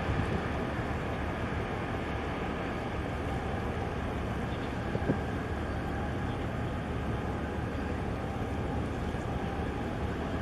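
Steady low rumble of harbour ambience as a large container ship and its tug pass, with a faint steady hum running through it and a single small click about five seconds in.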